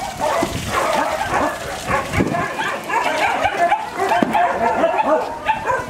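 Many dogs barking and yipping at once in a dense, overlapping chorus that goes on without a break.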